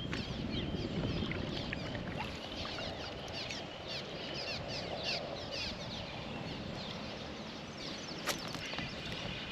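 Water lapping and trickling around a kayak on a river, with one sharp click about eight seconds in.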